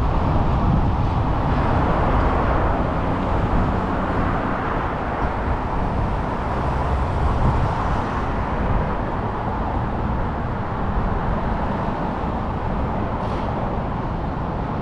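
Steady city traffic noise: road vehicles running past, a constant rumble and hiss with no single event standing out.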